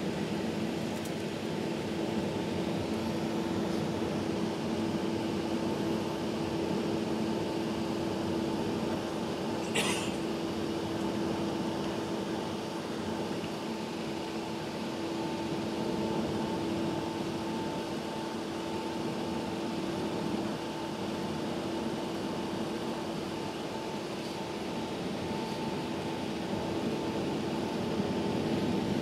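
Steady cabin hum inside an Airbus A380 moving on the ground, made of engine and air-conditioning noise, with a steady low drone and a fainter higher whine. A brief click sounds about ten seconds in.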